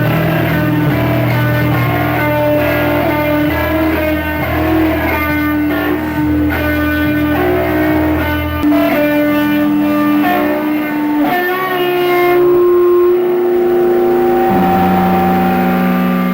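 Music played on guitar: a run of plucked notes over held low bass tones. The bass drops out about halfway through and comes back near the end.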